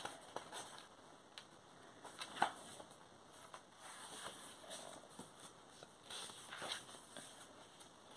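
Pages of a paperback book being leafed through: faint, scattered rustles and flicks of paper, the sharpest about two and a half seconds in.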